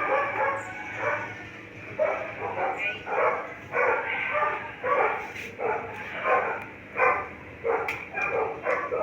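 A dog barking over and over, one or two barks a second.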